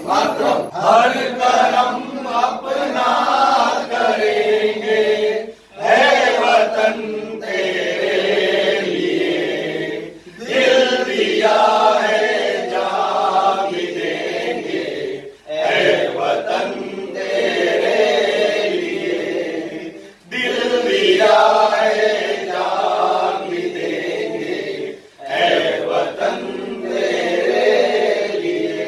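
A group of men singing together in unison without accompaniment, in phrases of about five seconds with short breaks between them.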